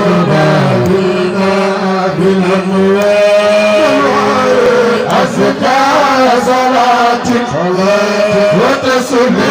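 A man chanting a Senegalese religious poem (khassida) into a microphone through a loudspeaker, in long, drawn-out, wavering notes. A steady low drone runs beneath most of it.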